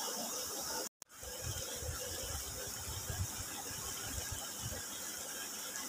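Steady outdoor background hiss beside a small stream, cut off completely for a moment about a second in by an edit. Low rumbles come and go through the middle.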